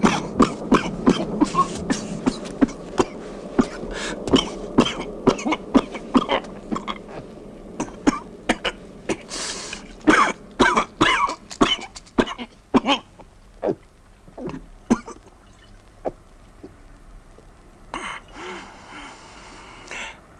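A person in a long fit of short, sharp coughs, about two a second, thinning out after about thirteen seconds and stopping by about fifteen, followed by a drawn breath near the end. It is presented as the cough of coronavirus infection.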